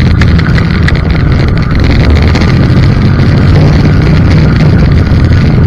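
Snowmobile engine running steadily at trail speed, heard from the rider's own machine, with wind buffeting the microphone.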